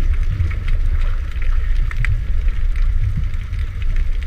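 Underwater sound around snorkelers: a steady low rumble with scattered small clicks and pops.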